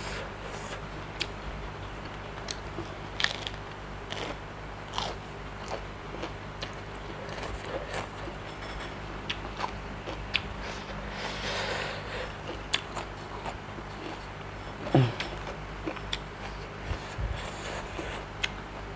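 Close-up eating sounds: a person biting and chewing food, with irregular crunches and wet mouth clicks scattered through.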